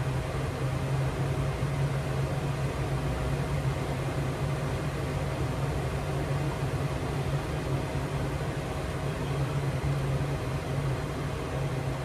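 Steady cockpit noise of a Boeing 737 in flight during descent: a constant rush of air over the airframe with a low drone and a faint steady whine.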